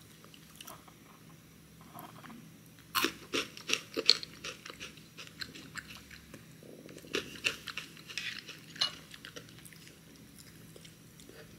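Crunchy cacao protein granola being bitten and chewed. The crisp crunching starts about three seconds in and comes in two spells.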